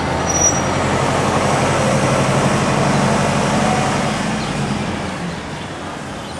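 City street traffic: a pack of yellow taxis and cars driving through an intersection, engine and tyre noise building louder and then fading as they pass.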